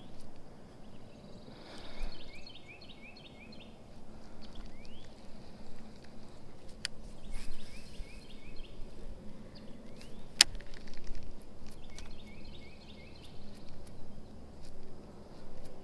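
A songbird repeating a short phrase of quick rising chirps about every five seconds, over quiet outdoor background noise, with a few sharp clicks from the fishing gear, the loudest about ten seconds in.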